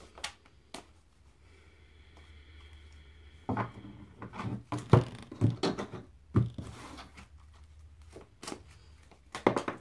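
Enchanted Map oracle cards being shuffled hand over hand: quick clusters of soft snaps and rustles as the cards slap together, starting about three and a half seconds in and coming again near the end.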